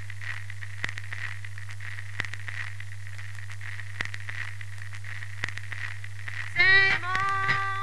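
Old-film crackle effect: a steady low hum under a faint hiss, with scattered clicks and pops. About six and a half seconds in, music starts with a line of held notes.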